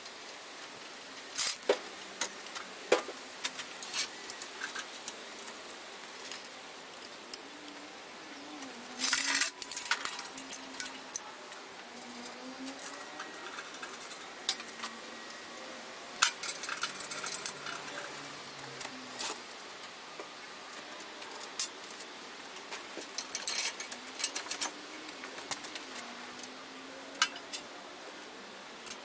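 Irregular metallic clicks and clinks, with a burst of louder knocks about nine seconds in: metal parts and fittings being handled.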